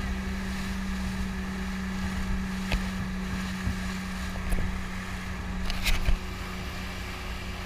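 Small motorboat running at speed: a steady engine drone over rushing water and spray from the wake, with a few sharp slaps of the hull on the waves, the loudest about six seconds in.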